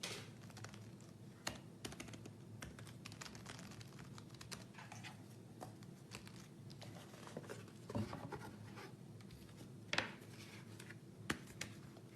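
Faint, irregular key clicks and taps from typing on the Logitech Rugged Folio's built-in keyboard, with a few sharper clicks among them.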